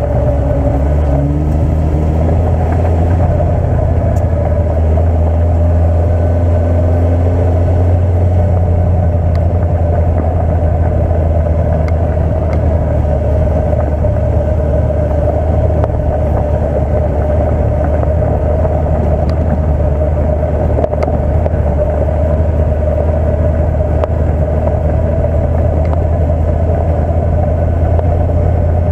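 Honda CB650F's inline-four engine running at low, steady revs while riding slowly down a gravel track, with gravel crunching under the tyres and a few small stone ticks.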